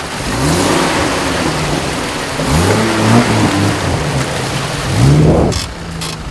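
Land Rover Discovery 4x4 engine revving in three rising bursts as it drives through a muddy river crossing, its tyres churning mud and water, with a few sharp knocks near the end.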